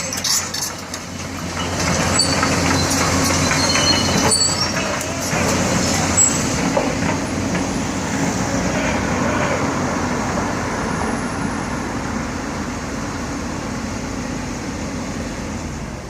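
Heavy diesel demolition machinery running, with clattering knocks and brief high metallic squeals in the first few seconds, then a steady engine drone.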